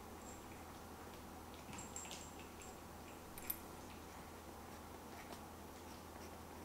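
Fountain pen nib scratching faintly across diary paper in short strokes, with a few light ticks and one sharper click about three and a half seconds in.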